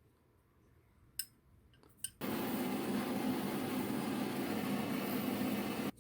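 Two light clicks, then a power grinder grinding down the end of a steel cap screw, a steady noisy run that starts suddenly about two seconds in and cuts off abruptly near the end. The screw is being shortened a little more so it no longer sticks proud into the vise jaw's V-groove.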